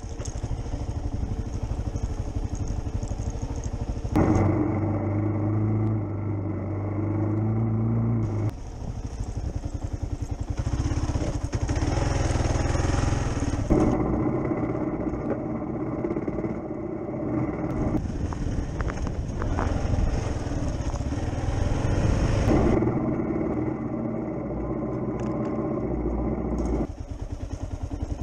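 Kawasaki KLR 650 single-cylinder four-stroke motorcycle engine running under changing throttle on a rough dirt trail, heard from the bike through an action camera; the engine note shifts abruptly several times.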